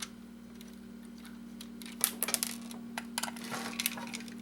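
Small hard clicks and taps as a plastic circuit board and pieces of a plug-and-play game's casing are handled and turned over on a work surface, in a cluster about halfway in and a few more near the end, over a steady low electrical hum.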